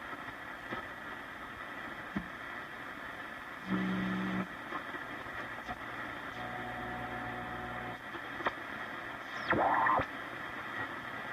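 1942 Zenith 8S661 console radio being tuned between stations: a steady static hiss, broken about four seconds in by a short loud buzzing tone, then a fainter steady tone for a second or two. Near the end a loud whistle sweeps sharply down in pitch as the dial passes a station.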